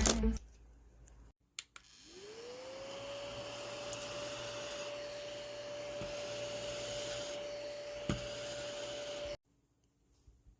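Small desk vacuum cleaner switched on with a click: its motor whirs up to speed and then runs at a steady pitch with a hiss of air. It stops suddenly near the end.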